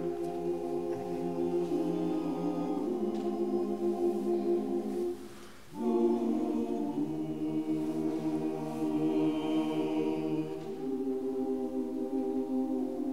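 Choir singing long held chords, with a short break about five and a half seconds in before the next chord begins.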